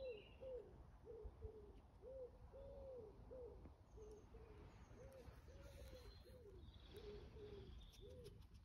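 Pigeon cooing: a faint, repeated run of soft, low hooting notes, some drawn out longer than others.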